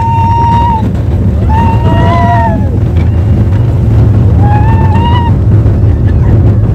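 A woman screaming in long, high cries on a roller coaster. One trails off about a second in, another comes near two seconds, and a third near five seconds. Under them, wind buffets the phone's microphone as the car speeds along.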